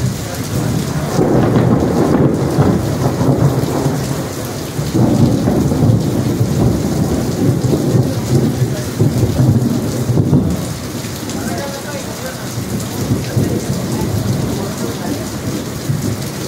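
Steady rain with thunder rumbling in two long rolls, the first starting about a second in and the second about five seconds in and fading near the ten-second mark.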